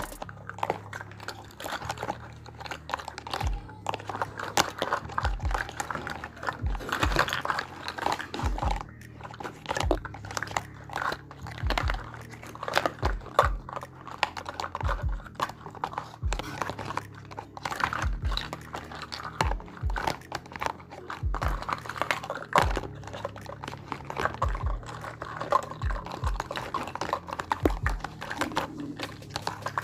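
Miniature toy kitchen pieces being handled, giving an irregular run of light clicks and taps, several a second.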